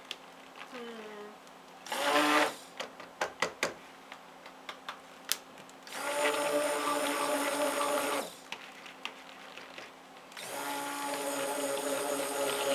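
Electric stick blender running in short bursts in a plastic pitcher of cold-process soap batter. It gives a brief pulse about two seconds in, then two longer runs of about two seconds each, with light knocks of the blender against the pitcher in between.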